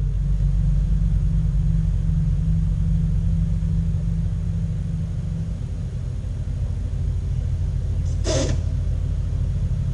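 Steady low hum of running machinery, with one short scrape or click about eight seconds in.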